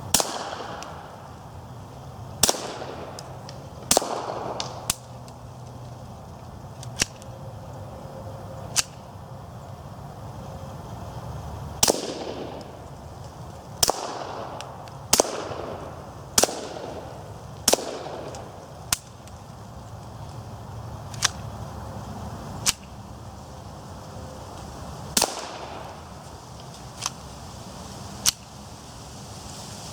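Suppressed .22 LR Walther P22 pistol fired about seventeen times, shot by shot at uneven gaps of one to three seconds, through a loosely fitting Advanced Armament Element 2 suppressor. The pistol is not cycling with the suppressor on.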